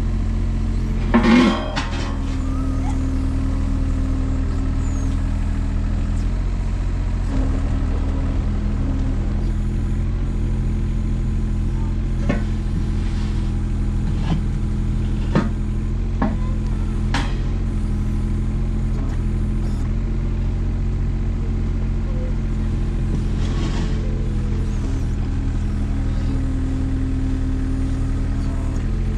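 Kobelco SR17 mini excavator's diesel engine running steadily while its hydraulics work the arm and quick coupler to pick up a bucket. A loud knock about a second in and a few sharp metal clinks in the middle, from the bucket and coupler meeting.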